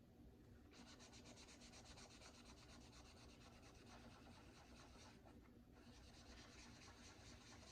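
Faint, rapid back-and-forth hand rubbing on a Glock pistol barrel, working polish in to strip its soaked finish, which is only coming off a little. The strokes start about a second in and pause briefly past the halfway mark before resuming.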